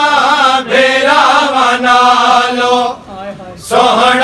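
Group of men chanting a Punjabi noha in unison, drawing out long sung notes on a held line, with a brief breath pause about three seconds in before the voices come back.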